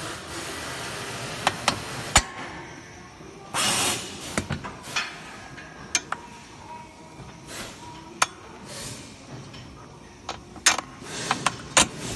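Scattered sharp clicks and knocks of parts being handled on a massage chair's steel frame, around the square-tube footrest mount, with a brief scraping rustle about four seconds in.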